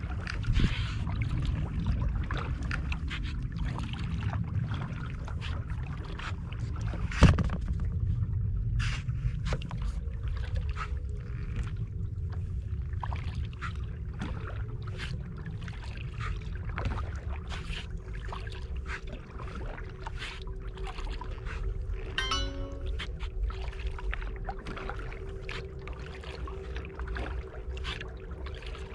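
Kayak paddling on calm water: paddle blades dipping and water splashing and lapping against the plastic hull in short irregular splashes, over a low wind rumble on the microphone. A faint steady hum comes in about ten seconds in.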